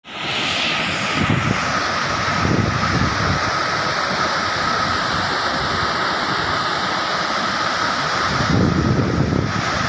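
Muddy floodwater pouring in sheets over a stepped masonry dam spillway, a steady, loud rush of falling water: the reservoir is full and overflowing. Low gusts of wind on the microphone swell now and then.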